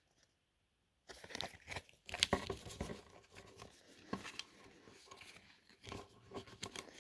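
Vanguard trading cards and their plastic packaging being handled: irregular rustling, crinkling and clicking that starts about a second in, loudest a second later.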